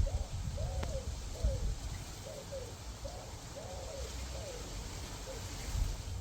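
A dove cooing outdoors: a repeated short–long–short phrase of soft rising-and-falling coos, over a low steady rumble.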